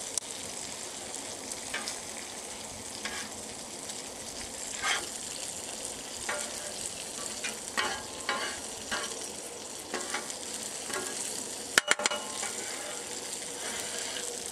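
Food sizzling in oil on a Blackstone flat-top steel griddle, with vegetable hash, bacon and sausage frying, while a metal spatula scrapes and taps on the cooktop as the hash and eggs are turned. One sharp clack stands out about twelve seconds in.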